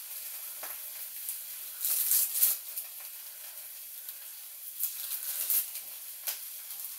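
Vegetables frying in a skillet on the stove, a steady sizzle with louder crackles about two seconds in and again around five and six seconds.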